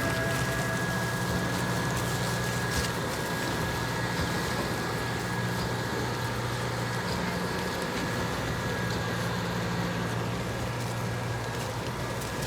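Tractor engine running steadily while towing a feed wagon out in the paddock. A steady high whine sounds over the engine throughout.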